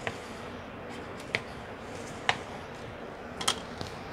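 A few sharp light clicks and taps, about one a second, as plastic mixing cups of resin are handled and set down on a plastic cutting board, over a faint steady hum.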